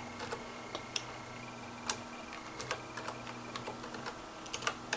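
Computer keyboard keys tapped at an irregular, unhurried pace, a dozen or so separate keystrokes: typing a name for a new folder.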